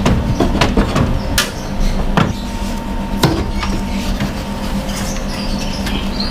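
A steady motor hum, with a handful of sharp knocks and clatters at irregular moments, the loudest about a second and a half and three seconds in.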